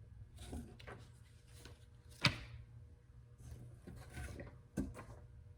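Comic books being handled and shuffled out of a box: quiet rustling and sliding, with a sharp tap about two seconds in and another near the end.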